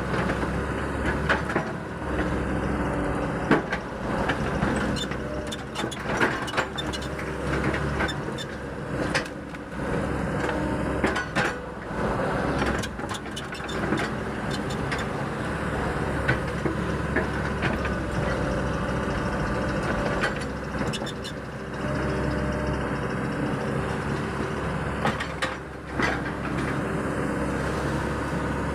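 Hydraulic excavator's diesel engine running steadily under load, with frequent sharp knocks and clanks throughout as it digs out a ditch.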